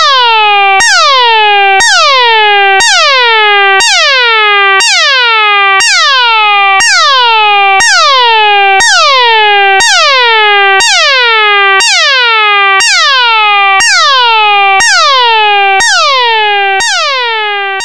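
Sci-fi alarm sound effect: a buzzy electronic tone that swoops down in pitch, repeating about once a second, fading out near the end.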